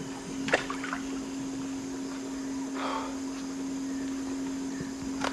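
Quiet river ambience of water and air under a steady low hum, broken by a single sharp knock about half a second in.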